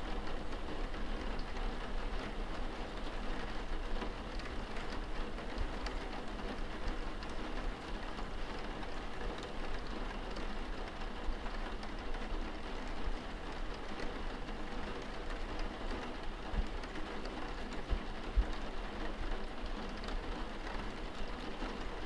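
A steady, even rushing noise like heavy rain, with a faint low hum under it and a few soft knocks in the second half.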